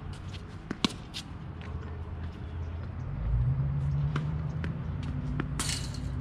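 Tennis rally on a hard court: sharp pops of the ball struck by rackets and bouncing, with footsteps, the loudest pop about a second in. Underneath, a low steady hum grows louder about three seconds in, and a short hiss comes near the end.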